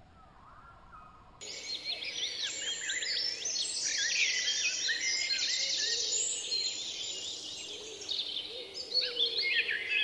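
A flock of small parrots chattering: many overlapping short chirps and quick rising and falling whistles, starting abruptly about a second and a half in and continuing densely after that.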